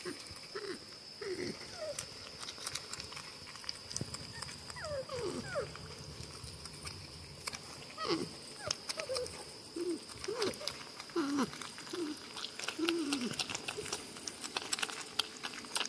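Porcupines squabbling over food with a string of short moaning, whining calls, most sliding down in pitch, several every couple of seconds. Sharp clicks and crunches of peanuts being chewed run through them.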